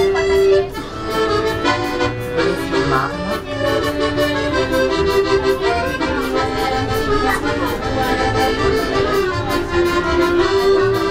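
Piano accordion played live inside a train carriage: a melody of held and moving notes over chords, continuous throughout.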